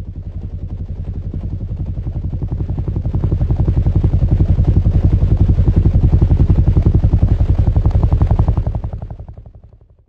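Helicopter rotor chop: a deep, rapid, even pulsing of about ten beats a second. It swells over the first few seconds and fades out near the end.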